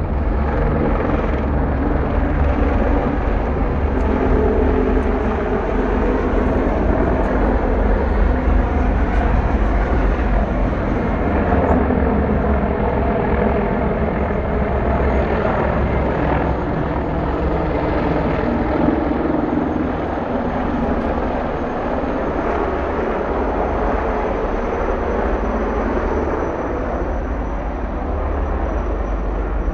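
Several helicopters flying overhead in formation: a steady drone of rotors and engines that eases a little in the later part.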